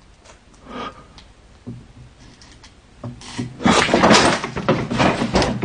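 A few faint knocks, then from about three and a half seconds in, loud close rustling and knocking: objects being handled or moved among debris.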